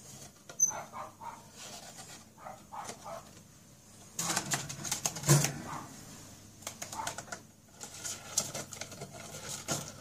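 A budgerigar scrabbling and flapping inside a cardboard carry box, the cardboard rustling and scraping in irregular bursts. The loudest burst comes about four to five seconds in, and a sharp click sounds just under a second in.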